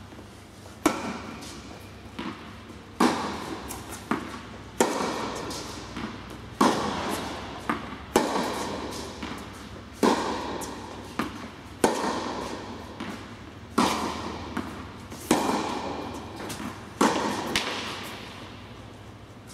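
Tennis rally: a ball struck by rackets about every two seconds, each hit a sharp pop that rings on in the echo of an indoor tennis hall, with lighter ball bounces between the hits.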